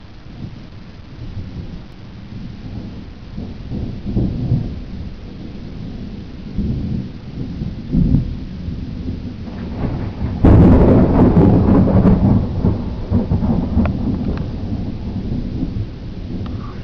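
Thunder rumbling in swelling waves, then a sharp, loud clap about ten seconds in that rolls on and slowly fades. Steady rain hisses underneath.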